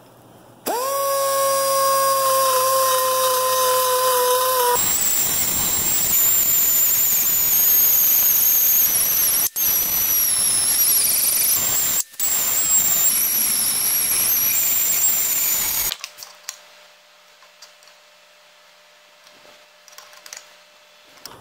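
Air-powered die grinder with a carbide burr: it spins up to a steady whine about a second in, then turns to a harsher grinding noise with a wavering high whine as the burr cuts into the aluminium intake ports of a VW 1.8T 20-valve cylinder head. It breaks off for an instant twice, then stops a few seconds before the end.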